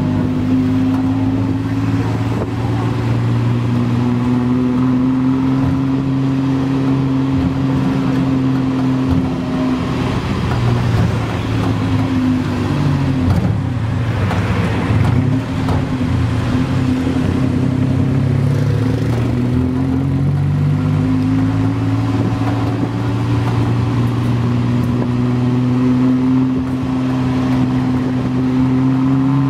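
Tuk-tuk engine running under way, heard from the passenger seat. Its note holds steady for long stretches, then wavers, dips and climbs again in the middle as the tuk-tuk slows and picks up speed.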